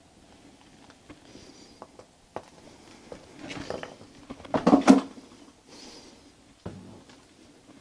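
Footsteps and handling noises moving through a debris-strewn abandoned room: scattered small knocks and rustles, with a louder clatter of several quick knocks about halfway through.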